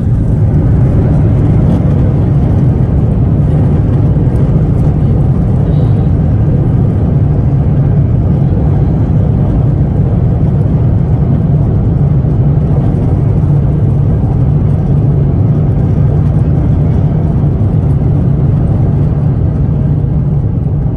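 Steady, loud cabin rumble inside an Airbus A350-1000 as it rolls along the ground after landing.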